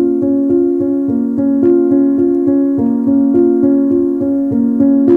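Background music on a piano-like keyboard: an even run of notes, about three to four a second, over sustained chords.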